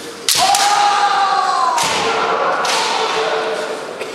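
Kendo attack: a sharp crack of a bamboo shinai strike and stamping foot, followed at once by a long kiai shout that slowly falls in pitch. Two further bursts of noise follow, about a second and a half and two and a half seconds after the strike.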